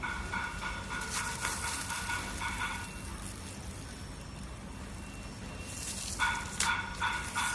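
Slime being handled, with crackling and popping from trapped air and a few sharp clicks. A high, rapidly pulsing tone runs through it, stops about three seconds in and comes back near the end.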